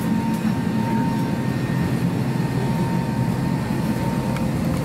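Steady air-conditioning hum inside a parked Airbus A320's passenger cabin, with a faint, thin, steady high tone above it.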